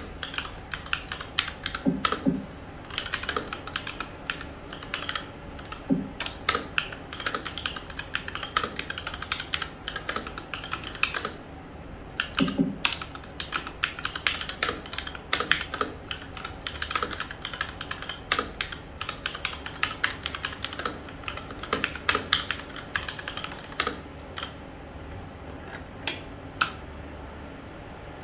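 Continuous typing on a SteelSeries Apex 7 TKL mechanical keyboard with linear red switches: a fast, uneven stream of keystroke clacks, with a few deeper knocks among them.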